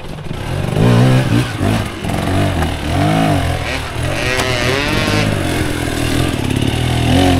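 Enduro dirt bike engine revving in repeated bursts, the pitch rising and falling over and over as the throttle is worked.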